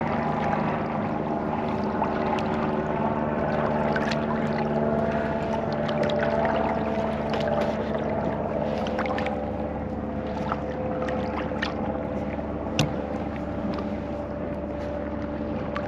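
Steady drone of a running engine, such as a boat motor, holding one even pitch throughout, with scattered small clicks.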